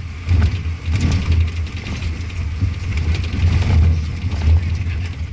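Vehicle driving on a rough dirt road, heard from inside the cab: a steady low engine and road rumble that swells and dips, with occasional knocks and rattles from the bumpy surface.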